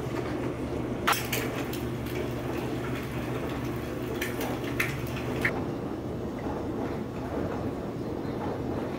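Kitchen sounds of food being prepared: a few sharp clinks and taps of dishes and utensils, about a second in and again between four and six seconds in, over a steady low hum.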